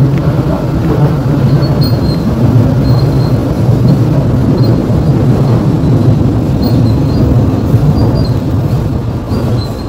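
Düsseldorf U-Bahn light-rail car running, heard from inside the car by the articulation joint: a loud, steady low rumble of wheels on the track.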